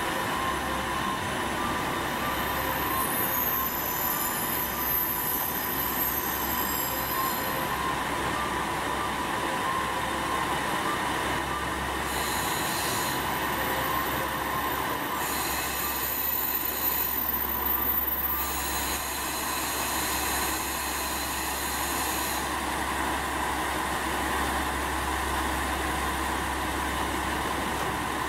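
KiHa 47 diesel railcar pulling into the platform and coming to a stop with its diesel engine running. High-pitched wheel and brake squeal comes and goes as it slows.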